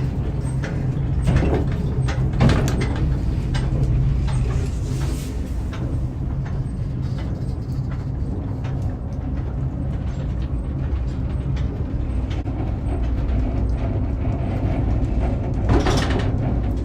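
Fenelon Place Elevator funicular car climbing its incline, heard from inside the car: a steady low rumble, with a few sharp clacks near the start and again near the end.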